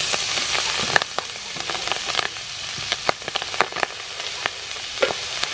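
Clam meat sizzling as it hits hot soybean oil in a frying pan, then stirred with a metal spatula that clicks and scrapes against the pan. The sizzle is loudest for about the first second, then quieter under many sharp spatula clicks.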